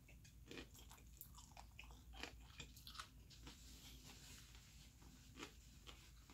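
A person chewing spicy instant jjajang ramen noodles close to the microphone: faint, with irregular soft mouth clicks.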